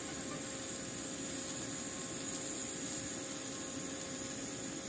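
TIG welding arc burning steadily on a steel frame joint at a fairly high current: an even hiss with a faint constant tone underneath.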